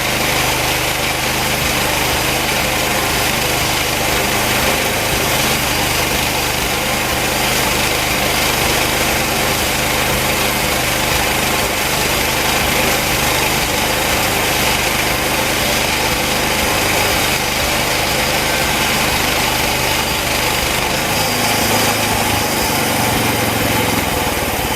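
Homemade bandsaw sawmill's engine running steadily under load while its band blade cuts slowly through hard post oak on a worn, used blade. The engine note shifts a little near the end.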